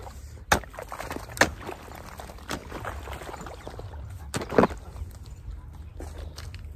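A flat-bladed hand hoe chopping into wet field soil, about five sharp strikes with two close together past the middle, over a faint steady wash of irrigation water running into the wheat field.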